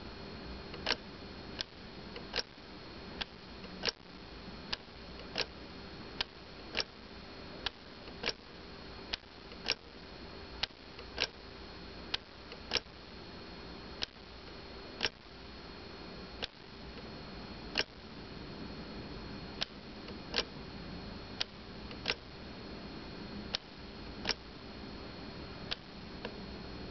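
Smith-Corona Silent Super typewriter's escapement clicking as it steps, one sharp click about every three-quarters of a second in a fairly even rhythm, with a few longer pauses. A steady low hum sits underneath.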